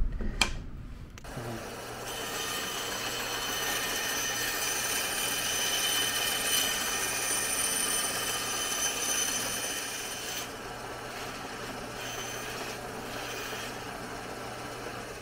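Bandsaw running and cutting through plywood: a steady motor hum under the hiss of the blade in the wood. It starts about a second in, and the cut gets a little quieter after about ten seconds.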